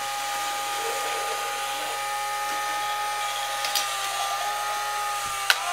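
A small electric motor, most likely the toy track set's, running with a steady whine. A couple of sharp clicks come near the end.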